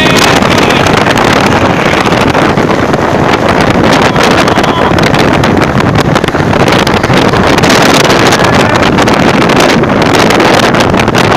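Strong wind buffeting the microphone: a loud, continuous rushing roar that rises and falls in gusts.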